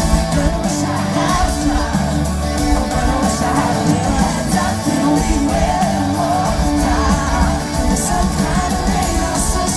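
Live country-pop band playing loud, with drums, bass and guitars, and singing mixed in.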